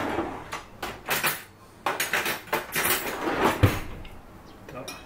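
Kitchen handling noises: a run of knocks, clicks and short scraping or rustling sounds as things are picked up and put down, with a sharper knock about three and a half seconds in.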